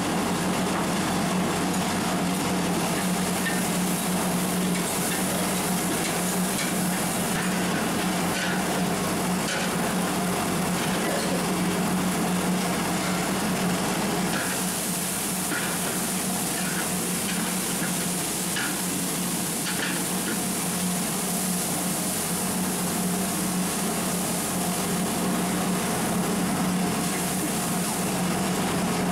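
Spiced onion masala sizzling and frying in oil in a large aluminium pot. A long metal spatula stirs and scrapes against the pot now and then, over a steady roar and hum from the gas burner beneath.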